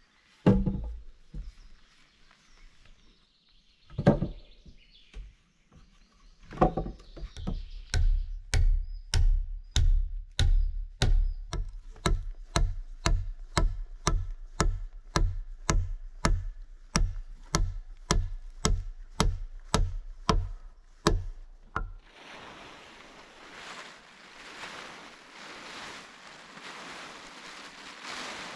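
A few heavy thumps of logs being laid onto a log roof, then a hammer driving nails into the roof logs in a steady run of strikes, about two a second. Near the end the strikes stop and a plastic tarp rustles as it is spread over the roof.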